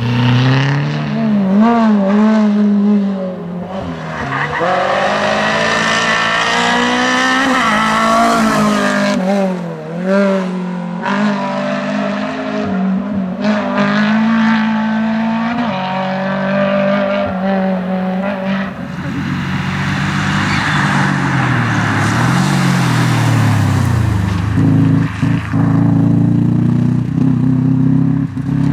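Rally cars on a special stage, engines revving hard and rising and falling in pitch as they shift through the gears.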